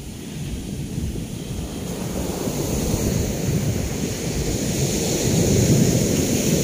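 Ocean surf washing onto the beach, building steadily louder as a wave rolls in, with wind rumbling on the microphone.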